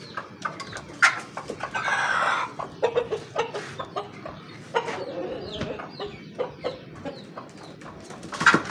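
Chickens clucking, a rooster among hens, with short sharp clicks scattered throughout and a brief noisy burst about two seconds in.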